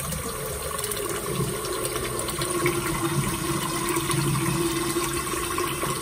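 Tap water running steadily while a vacuum cleaner's dirty sponge filter is washed under it, with a steady tone in the flow.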